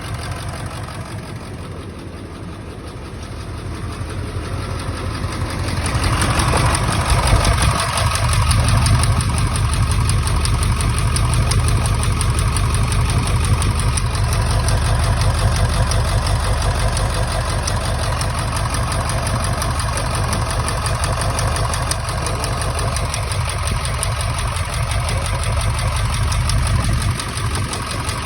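Ford 7.3 Powerstroke V8 turbodiesel idling roughly: the owner says it still isn't running well because of an injector misfire. It grows louder over the first six seconds and then holds steady.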